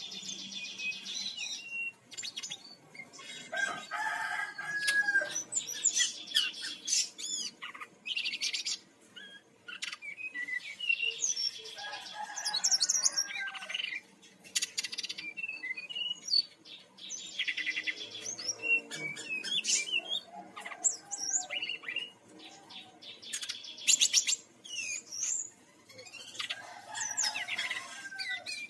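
Brown-chested jungle flycatcher (Bali form) singing a varied song. Rapid buzzy trills alternate with twisting high chirps and some lower whistled phrases, in bursts with short pauses between them.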